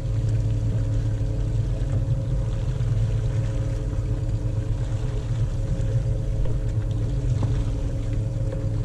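Fishing boat's engine running steadily with a constant low hum.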